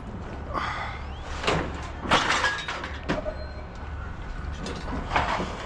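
Scrap pieces being handled, giving several separate knocks and clatters over a steady low rumble.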